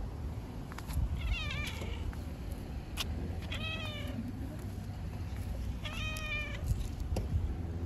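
Domestic cat meowing three times, short calls a couple of seconds apart, the first falling in pitch: a cat asking for attention and to be stroked. A low steady rumble runs underneath.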